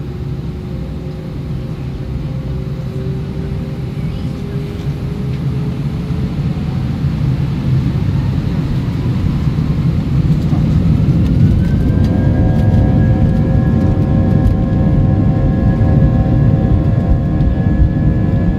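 Airbus A320's twin jet engines spooling up for the takeoff roll, heard inside the cabin. A low rumble grows louder while whining tones climb in pitch for about twelve seconds, then hold steady at high thrust.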